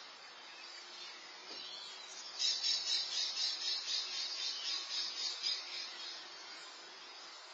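A high, fast-pulsing chirping trill from a small animal, starting about two seconds in and lasting about four seconds, over a faint steady outdoor hiss.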